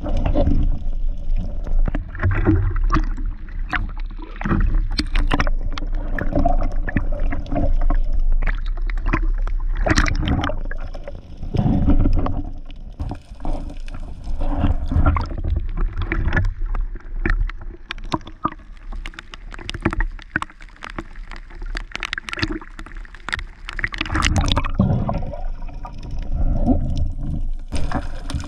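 Water gurgling and churning around the camera, with a low rumble and many sharp clicks and knocks throughout.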